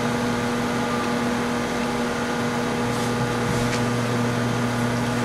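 LG V194H DVD/VCR combo winding a T-120 VHS cassette at high speed in its fast-forward/rewind cycle: a steady whir over a low hum, with a couple of faint ticks about three seconds in.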